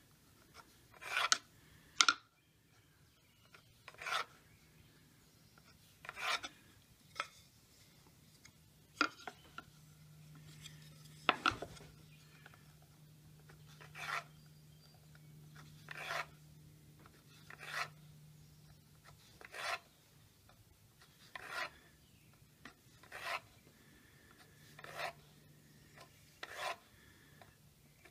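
Pencil drawing short layout lines on a wooden board along a square, a brief scratchy stroke about every two seconds.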